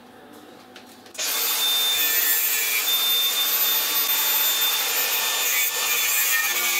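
Makita brushless angle grinder starting about a second in and running with a steady whine, its disc grinding away the plastic housing on the end of a MacBook MagSafe adapter cable in a dense, hissing scrape.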